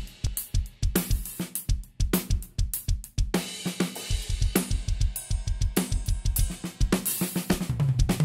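Pearl Session Studio Select drum kit played as a busy groove: quick bass drum strokes under snare, hi-hat and cymbal hits, ending with a low ringing drum and a cymbal crash near the end.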